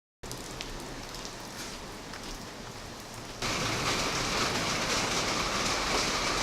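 Rain falling, a steady hiss that gets louder about halfway through.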